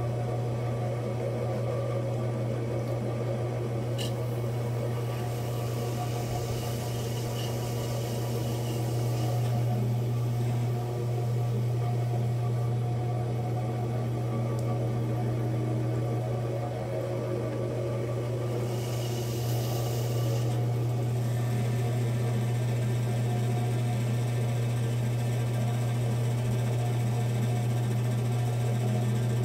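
Electric potter's wheel motor humming steadily as the wheel head spins at a constant speed. A soft hiss rises over it twice, with one small click about four seconds in.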